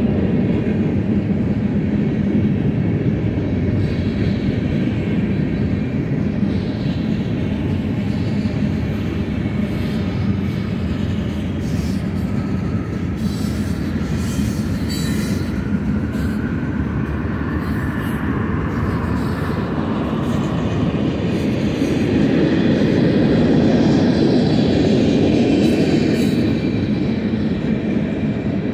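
Freight cars of a Union Pacific manifest train, mostly covered hoppers with some tank cars, rolling past with a steady rumble of steel wheels on rail. Faint high-pitched wheel squeal rises and falls in the second half, and the rumble swells a little near the end.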